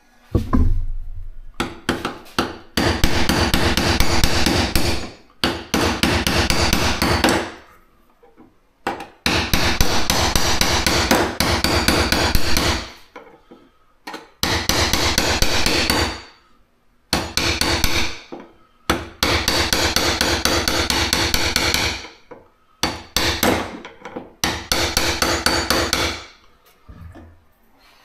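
Hammer tapping a blunt-ended file against the fuel pump retaining nut to knock it loose: rapid strikes, many a second, in runs of a few seconds with short pauses between.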